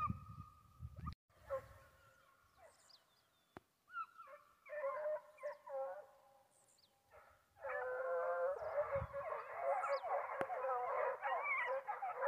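A pack of foxhounds baying. At first a few separate voices call now and then, and from about eight seconds in many hounds bay together in a continuous chorus. This is the hounds giving tongue while hunting wild boar.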